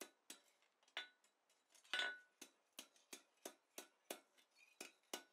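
Light, quick hammer taps on a small hot coil of 4140 steel lying in the step of an anvil, about three a second, each with a short metallic ring. The blows are tightening the first circle of a hand-forged corkscrew.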